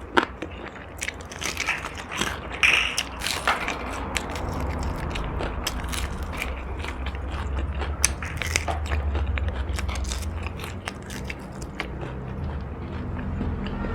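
Close-miked biting and chewing of crunchy food, crisp crackling crunches in the first few seconds giving way to steadier, softer chewing.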